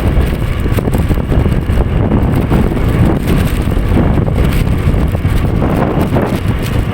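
Heavy wind buffeting the microphone while riding along a road, with the rumble of the moving vehicle underneath.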